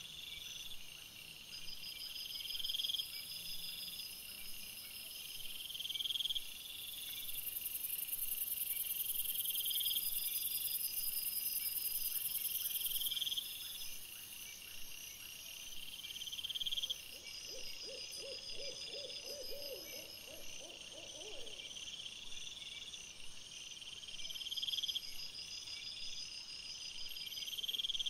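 Night insect chorus of crickets and bush-crickets trilling, with high phrases repeating every few seconds. About two-thirds of the way through comes a brief run of low, rapid pulses.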